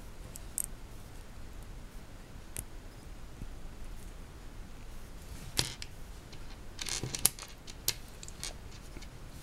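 Small plastic Lego bricks clicking and tapping as they are handled and pressed together, a few scattered clicks with a short cluster about seven seconds in.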